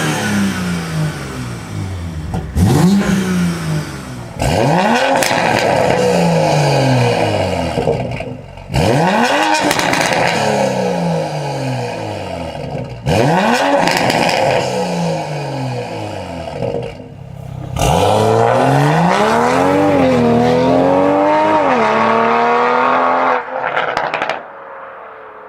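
BMW B58 turbocharged inline-six with an aftermarket exhaust, revved repeatedly while standing: about five quick blips, each snapping up and falling back over a couple of seconds, then a longer rev held and wavering for several seconds, with a brief last burst near the end.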